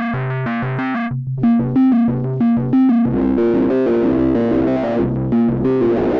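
Synthesizer riff played through the Eventide H90's Sculpt distortion algorithm, which pairs distortion with an envelope follower and compressor. Short repeated notes for about three seconds, then the sound turns thicker and grittier with more bass.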